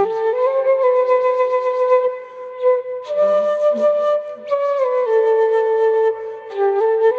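Bamboo flute playing a slow melody of long held notes that move up and down in small steps, with short breath pauses between phrases and audible breath at the note onsets.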